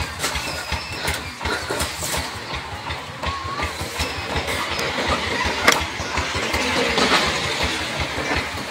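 Young puppies whimpering with a few short, bending squeaks over a low, rapidly pulsing rumble like an idling engine.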